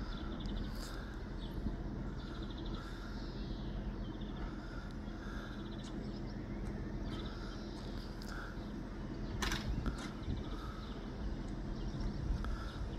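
Small birds chirping and trilling over a steady low hum, with one sharp click about nine and a half seconds in.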